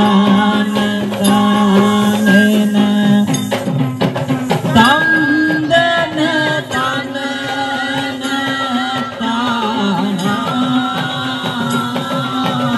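Music for a Kandyan dance: drums beaten in quick, busy strokes under a sustained, wavering melody line.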